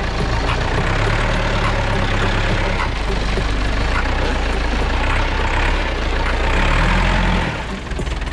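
Engine of a manual-transmission vehicle running steadily, rising in pitch briefly near the end and then dropping back down.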